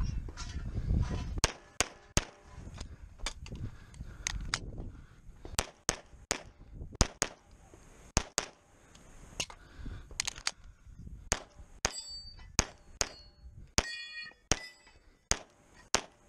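9mm CZ SP-01 Shadow pistol firing about two dozen shots in quick pairs and singles. In the later part, steel plates ring after hits.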